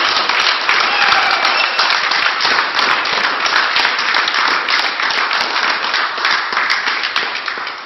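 Applause from a small group of people, many hands clapping together, slowly easing off and dying away at the end.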